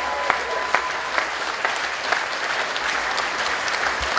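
A crowd clapping: a dense, even patter of many hands with scattered sharper claps.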